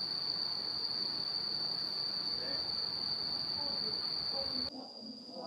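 Insects, crickets or cicadas, keeping up one steady high-pitched trill, over an even rushing hiss that cuts off suddenly near the end.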